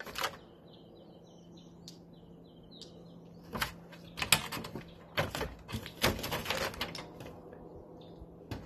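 Black bear inside a wooden shed banging and scraping at its broken door: a run of sharp knocks and rattles starting about three and a half seconds in, after a quiet stretch with a small bird chirping.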